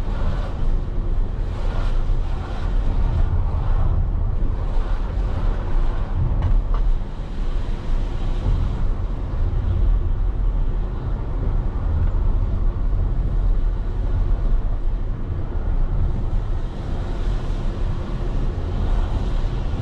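Vehicle engine and road noise while driving: a steady low rumble with no break.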